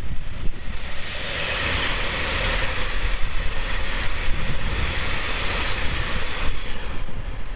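A train passing close by: a rush of wheel and rail noise that swells about a second in and eases off near the end, over wind buffeting the microphone.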